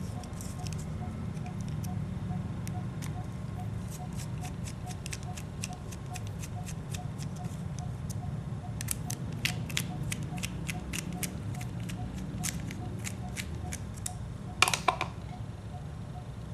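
Small metal clicks and ticks from a hand tool working the rear-cover screws of an OS 46AXII two-stroke model engine. The clicks come faster about nine seconds in, and a louder clatter of a few quick knocks comes near the end.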